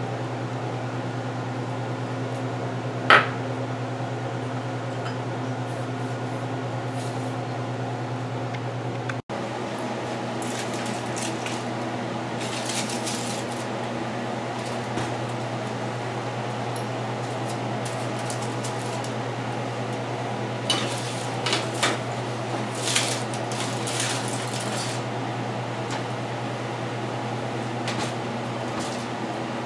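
Kitchen handling sounds over a steady low hum: a single sharp, ringing clink of the glass egg-wash bowl about three seconds in, then scattered clatter and rustle from the foil-lined baking tray being carried and slid onto the oven rack later on.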